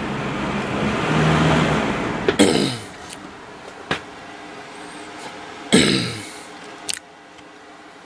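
Small box fan with a General Electric motor running on low with its grills on, a steady whirring. About two and a half seconds in and again near six seconds come two loud knocks, each with a quickly falling tone. After the first knock the running sound is much quieter.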